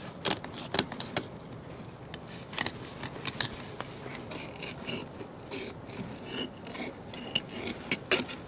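Fillet knife cutting and scraping through a kelp greenling on a plastic cooler lid: irregular sharp clicks and short scrapes as the blade works along the fish.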